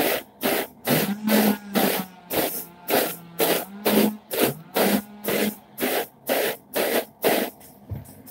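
Hair brush strokes through curly hair coated in conditioner: quick, even swishes about two a second that stop near the end, with a faint low hum underneath that rises and holds a few times.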